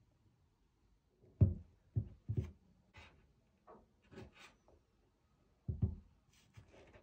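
Kickers Kick Hi patent leather boots with thick ridged rubber soles being handled and set down on a hard tabletop: a series of soft thuds and knocks, the first and loudest about a second and a half in, with light rustling of gloved hands between them.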